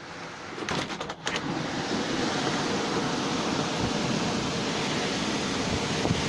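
Heavy downpour and gusting wind, a steady rushing noise, with a few brief knocks about a second in.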